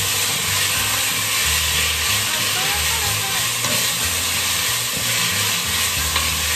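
Diced onion, garlic and thyme sizzling steadily in olive oil in an enamelled pot while being stirred with a wooden spoon; the onion is being sweated until translucent, not browned.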